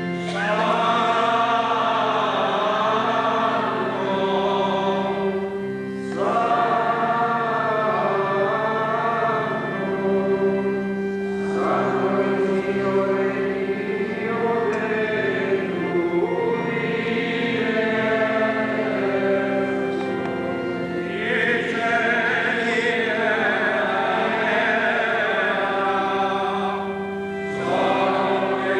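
A group of voices singing a liturgical hymn in phrases of about five seconds, with short breaks for breath between them, over steady held low notes.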